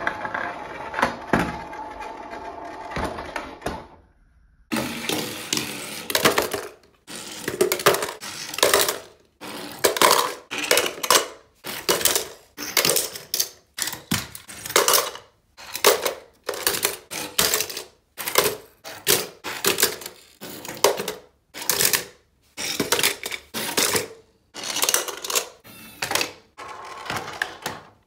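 Toy cars dropping one after another off a wooden slide into a bucket piled with other toy cars: a string of short clattering crashes, roughly one a second, starting about four seconds in. Before that, a tune plays.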